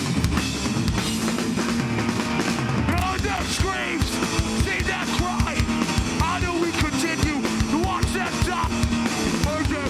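Hardcore band playing live: distorted electric guitars, bass guitar and a fast-hit drum kit.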